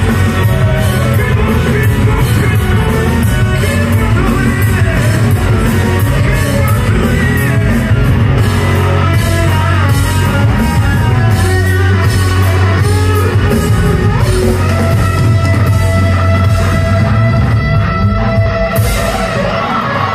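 Live rock band playing loud in a large hall: electric guitars, drums and vocals. Near the end the regular hits stop and held notes ring on.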